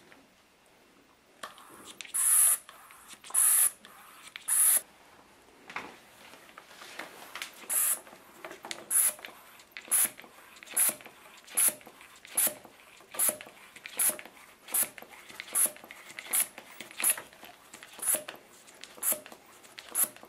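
Homemade vacuum pump worked in a steady rhythm, each stroke giving a short, high, squeaky hiss of air through its one-way aquarium check valves. Three louder, longer hisses come about two seconds in, then quieter strokes follow at just over one a second.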